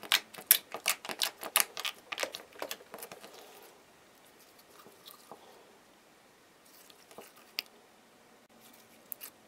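Sticky jelly slime making small wet clicks and squelches as hands press it on the table and stretch it. A quick run of clicks over the first three seconds or so thins out to a few scattered ones.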